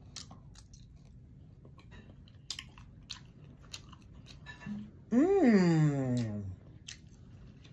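Close-miked mouth sounds of a person chewing boiled shrimp, a scatter of small wet clicks. About five seconds in comes the loudest sound, a long hummed vocal sound of a little over a second whose pitch rises and then falls.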